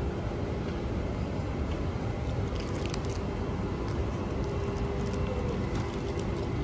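Tangara electric train at the platform giving off a steady low rumble and hum, with a faint steady tone over it. A few faint clicks come about two and a half seconds in.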